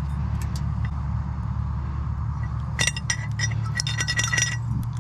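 Metal scrap and hand tools clinking and rattling as parts are pried apart and handled, a few sharp clicks and then a quick run of ringing metallic clinks, over a steady low hum.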